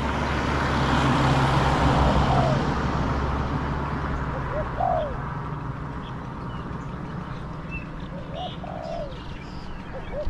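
Spotted doves cooing, short rounded coos repeated every few seconds. A car passes on the road over the first few seconds, its tyre and engine noise swelling and then fading.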